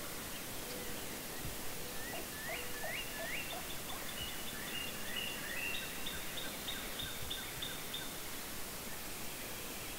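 Birds calling over a steady outdoor hiss: a quick run of rising chirps about two seconds in, then a series of short, evenly repeated notes for several seconds.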